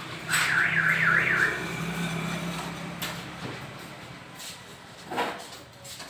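An electronic alarm warbling rapidly up and down in pitch for about a second, with a low hum under it, followed by a couple of short knocks.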